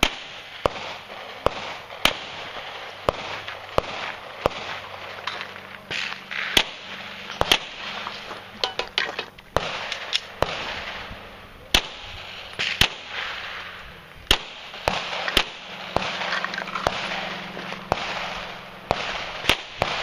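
A string of handgun shots, about two dozen sharp cracks fired singly and in quick pairs at irregular spacing as the shooter works through a course of fire. A faint steady low hum lies underneath.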